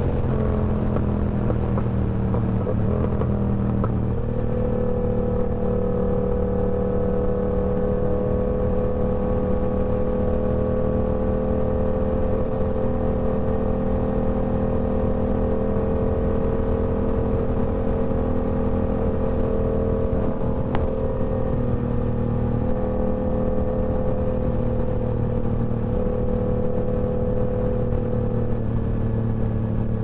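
Yamaha R7's parallel-twin engine through a TOCE full-system exhaust, running at a steady engine speed under way. The pitch dips briefly in the first few seconds and steps back up about four seconds in.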